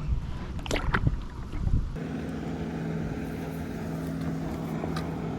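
A few knocks and handling noises, then from about two seconds in a boat motor running with a steady low hum.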